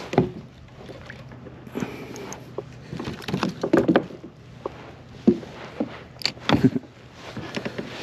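Irregular knocks, taps and rattles of handling on a plastic fishing kayak, with a few louder clunks partway through.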